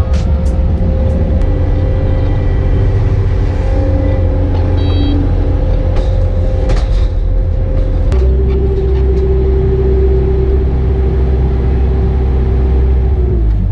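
Skid steer engine running steadily. About eight seconds in its note shifts to a stronger, steadier drone, which drops away just before the end.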